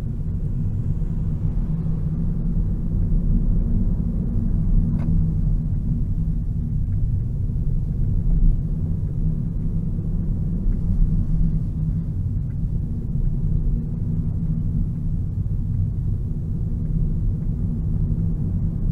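Hyundai Ioniq Electric driving slowly with changes between drive and coast, heard inside the cabin: a steady low rumble with several humming tones from the electric drive unit. It is the fault noise that the dealer traces to the motor shaft in the reduction gearbox.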